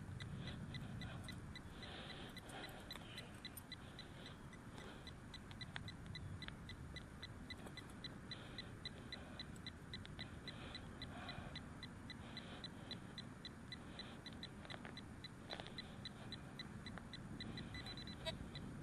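Faint electronic beeping from metal-detecting gear, a short two-pitch beep repeating steadily about three times a second while a target is probed for in a dig hole.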